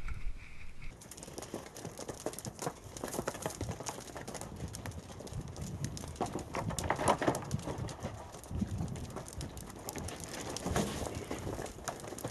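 Reindeer hooves clattering and knocking irregularly as the animals jostle and mill about in a pen, busiest about seven seconds in.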